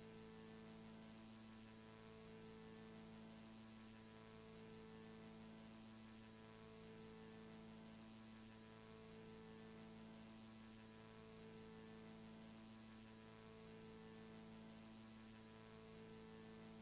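Near silence: a faint steady electrical hum under a layer of hiss.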